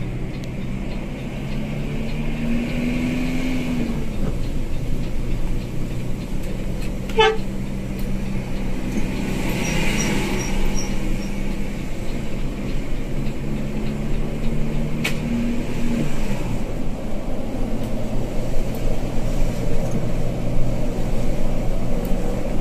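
A bus engine running under way, heard from inside the cabin, its pitch rising twice as it pulls and then dropping back. Two sharp clicks are heard, about seven and fifteen seconds in.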